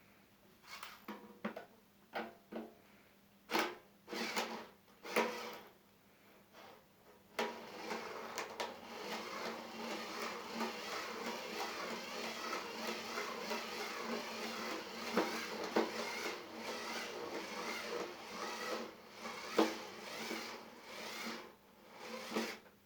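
A few clicks and knocks of handling, then, about seven seconds in, a small electric screwdriver starts running almost continuously for about fifteen seconds, backing out the screws of a sandwich toaster's casing.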